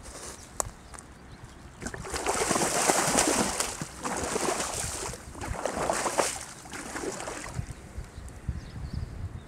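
Water splashing at the bank as a hooked snakehead is landed by hand, in two bouts: a louder one about two seconds in and a shorter one around six seconds.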